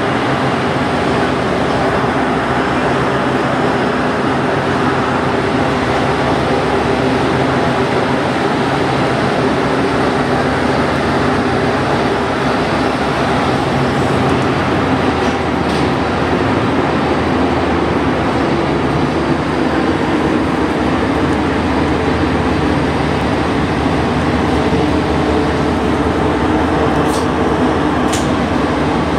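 Alstom NS-93 rubber-tyred metro train running at speed through a tunnel, heard from inside: a steady rumble and hiss of the running gear with motor hum. Brief high squeals come about halfway and near the end.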